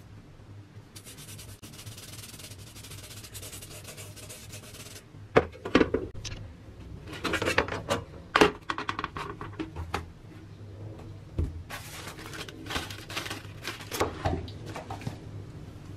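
Handling noise from a rusty steel helmet and clear plastic trays: a few seconds of steady hiss early on, then a string of knocks and clatters as the helmet is turned and set down in a plastic tray.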